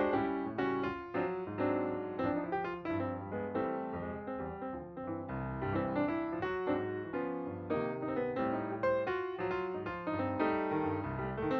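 Background piano music with a steady flow of notes.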